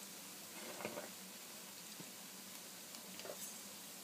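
Urad dal fritters (bhallas) deep-frying in hot oil in a kadai: a faint, steady sizzle with a few small crackles and pops.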